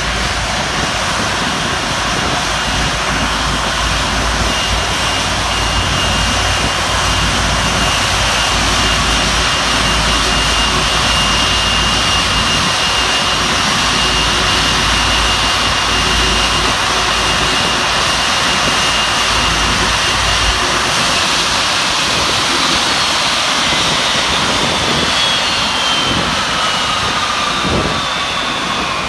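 Airbus A330 jet engines running loud and steady close by as the aircraft taxis on snow, with a high whine. The low rumble drops away about two-thirds of the way through, and the whine slides down in pitch near the end.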